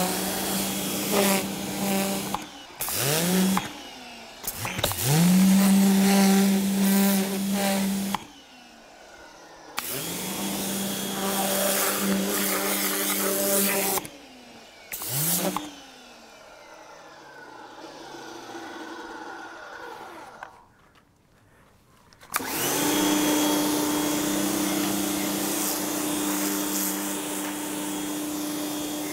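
Vacuum motor of a car-interior cleaning machine running in several short stretches, each starting with a rising spin-up into a steady hum, with short gaps between them. The last, longest stretch runs at a slightly higher pitch.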